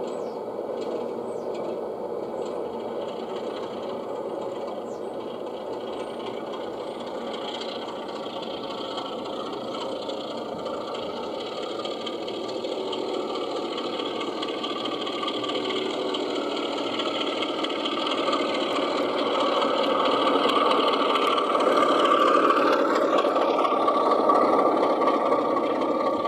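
O gauge model Class 33 diesel locomotive running along garden railway track with a short goods train, giving a steady mechanical running sound. It grows louder as the train nears, from about two-thirds of the way through, and peaks near the end.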